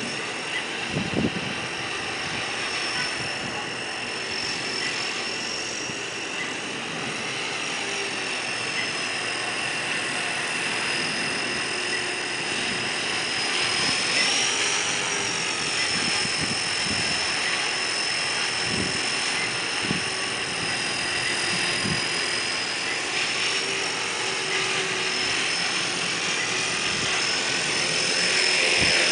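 Align T-Rex 250 electric RC helicopter in flight: a steady high whine from its motor and rotors, the pitch lifting briefly about halfway through, and louder near the end as it hovers close by. A brief low thump about a second in.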